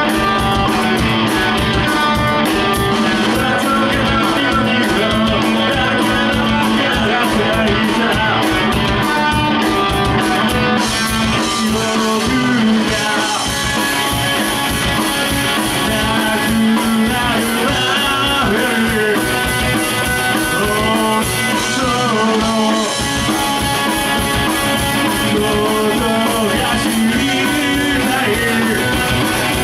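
Live rock music from a bassless three-piece band: electric guitar over drums, played loud. Rapid cymbal hits in the first part thin out about eleven seconds in.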